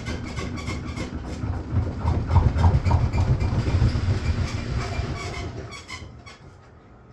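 Washing machine running with an unusual noise: a regular clicking, about three or four a second, over a low rumble that swells in the middle and dies away about six seconds in.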